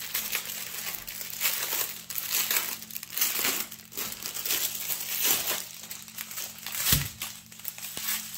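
Thin plastic bags of diamond painting drills crinkling and rustling as they are handled, in repeated bursts, with a dull knock about seven seconds in.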